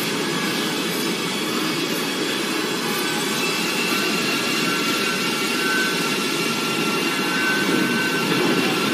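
Film sound design for a swirling column of alien energy: a loud, steady rushing noise, with a thin high tone joining about three and a half seconds in.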